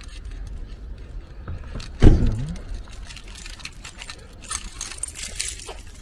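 A bunch of keys jangling and clinking in short, scattered bursts, with one loud, heavy thump about two seconds in.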